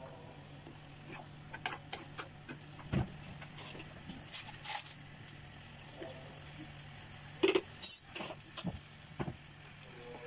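Wooden spatula stirring diced pumpkin and peas in a non-stick pan, knocking and scraping against the pan at irregular moments, over a low steady hum.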